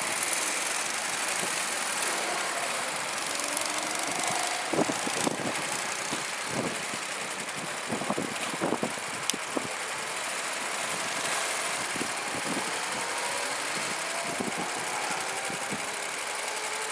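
Go-kart engines running, the nearby karts idling while karts out on the track give a pitch that rises and falls as they accelerate and pass. A few short sharp knocks are heard over the steady engine noise.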